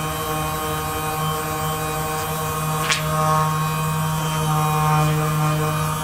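Handheld percussion massage gun buzzing steadily as it is pressed into a person's back, with one sharp click about three seconds in.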